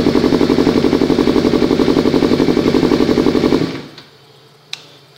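Yamaha R25 parallel-twin engine idling through an Akrapovic full-system exhaust with a steady, evenly pulsing note, then switched off about three and a half seconds in. A single sharp click follows about a second later.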